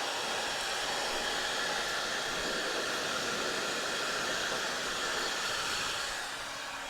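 A hot-air blower running with a steady hiss, warming the vinyl seat cover so its wrinkles relax. It fades away near the end.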